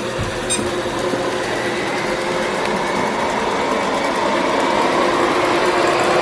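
ILIFE A4 robot vacuum running across the floor, a steady whirring of its suction motor and brushes, with a light click about half a second in.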